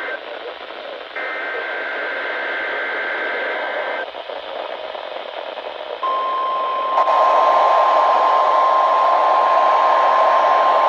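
NOAA Weather Radio test received over a hissing radio. A warbling two-tone SAME digital header burst ends, and a second one plays for about three seconds. About six seconds in, the steady 1050 Hz warning alarm tone comes on and holds, with the static growing louder a second later.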